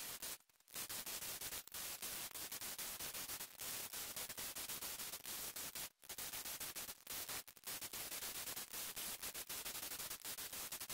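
Angle grinder fitted with a wire brush wheel scouring forge scale off a steel ground anchor, a steady scratchy hiss full of fine crackle that drops out briefly twice.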